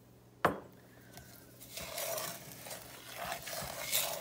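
A wooden spoon stirring a gritty mix of sugar, cocoa powder, melted butter and milk in a metal saucepan, scraping and rasping against the pan from about two seconds in. A single sharp knock comes just under half a second in.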